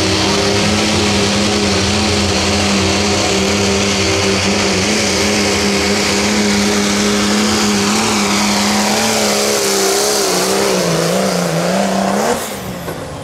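Diesel pulling truck of the 2.6 turbo class, its engine held at high revs under load during a pull. From about nine seconds in the revs waver up and down and sag, and near the end the engine drops off sharply as it is let off.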